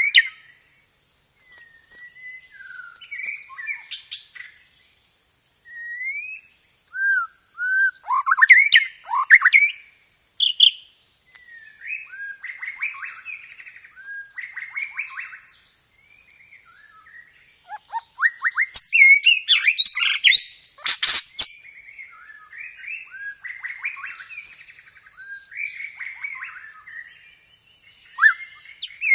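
White-rumped shama (murai batu) singing a varied song of short whistled phrases and fast rolling bursts, including mimicked fighting house-sparrow chatter. The loudest, densest run of harsh, rapid notes comes about two thirds of the way through, with a steady high whine underneath throughout.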